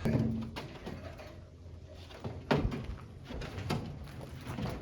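A few scattered knocks and thuds, the loudest about two and a half seconds in.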